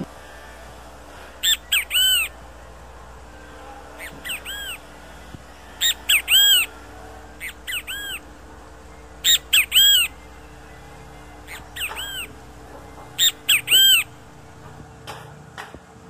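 Great kiskadee (bem-te-vi) calling its loud three-note "bem-te-vi" phrase, each note an arched rise and fall. Four loud phrases come about every three to four seconds, with fainter calls in between.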